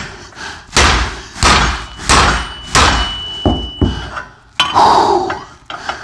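Sledgehammer blows on a hub puller bolted to a rear wheel hub: about four heavy metal-on-metal strikes in quick succession, the later ones with a ringing tone, then a few lighter knocks. The blows drive a CV axle that has just broken free further back through the hub, until it will go no further.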